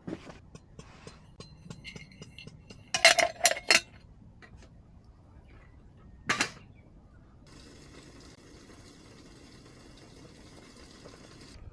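Tableware being handled: a quick run of sharp, ringing clinks about three seconds in and one more a few seconds later, followed by a steady hiss that stops abruptly.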